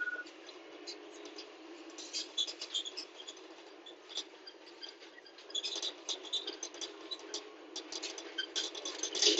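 Light, irregular clicking and rattling inside a moving vehicle on a cobbled road. The clicks grow denser about halfway through and again near the end.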